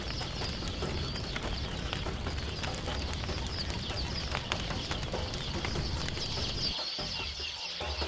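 Wood fire burning with frequent small crackles and pops, over a steady high chirping in the background.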